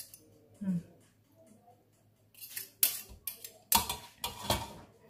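Metal spoons clinking and scraping against a stainless steel stockpot while lifting boiled noodles: scattered sharp clinks, the loudest between about three and four and a half seconds in.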